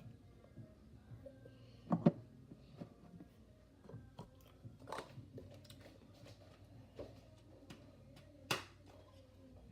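Scattered clicks and knocks of containers being handled on a table, as a shampoo bottle is opened and used over a mixing bowl. The loudest is a double knock about two seconds in, with another sharp knock near the end.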